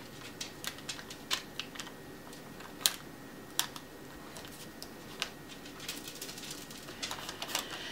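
Irregular small clicks and crackles of paper handling as adhesive dots are peeled from their backing paper and pressed onto a cardstock circle, with a quicker run of clicks near the end.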